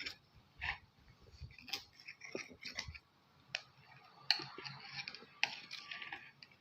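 A utensil clicking, tapping and scraping against a dish as a pizza tosai is cut up, in scattered short strokes that grow busier near the end.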